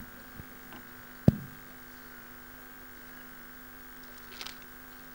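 Steady electrical hum from the public-address sound system during a pause, broken by one sharp knock about a second in and a couple of faint clicks near the end.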